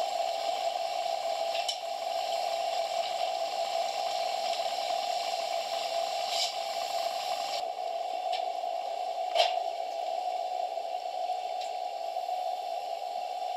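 Underwater ambience in a swimming pool: a steady hiss with a constant drone, broken by a few short clicks, the loudest about nine seconds in.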